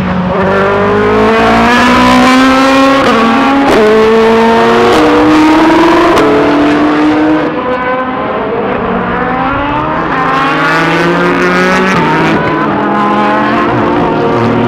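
Rebellion R-13 LMP1 prototype's Gibson GL458 4.5-litre V8 accelerating hard through the gears. Its note climbs and drops sharply at each quick upshift, about once a second, dips briefly about seven and a half seconds in, then pulls through the gears again.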